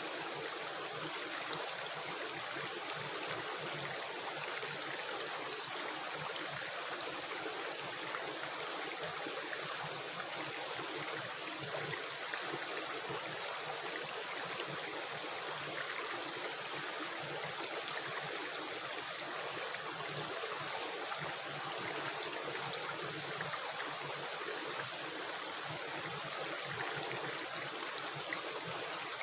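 Running water rushing and gurgling in a steady, unbroken flow, as of a stream.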